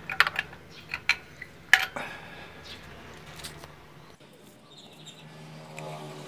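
Metal clinks and taps as spark plugs are handled and set into the plug wells of a cast valve cover: a few sharp clicks in the first two seconds, the loudest just under two seconds in, then only a faint low hum.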